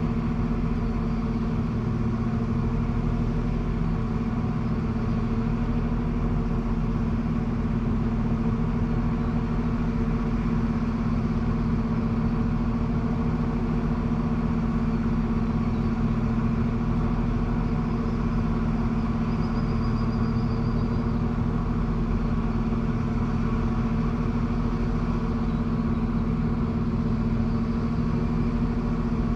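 A steady, unchanging motor hum with a strong low tone and several overtones, holding the same pitch and level throughout.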